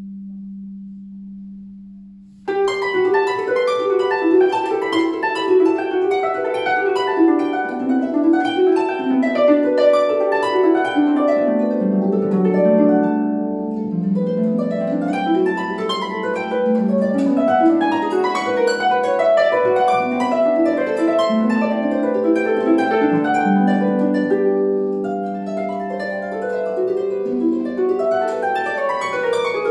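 Solo concert harp: a low note rings and fades, then about two and a half seconds in a rapid stream of plucked notes begins, running up and down in fast scales and arpeggios.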